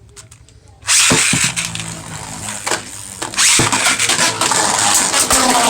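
Beyblade spinning tops whirring and grinding across a plastic stadium, starting suddenly about a second in, with several sharp clacks as they hit each other.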